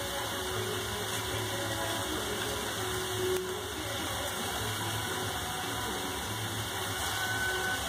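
Steady low hum with an even hiss, unbroken throughout.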